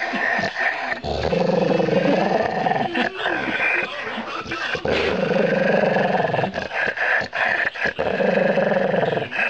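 Dog growling in long, drawn-out bouts with short breaks between them.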